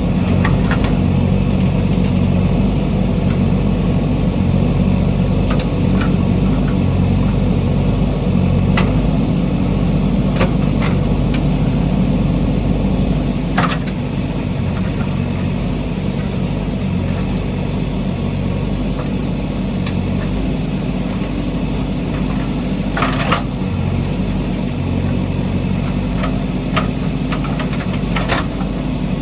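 JCB backhoe loader's diesel engine running steadily, with a few sharp knocks over it.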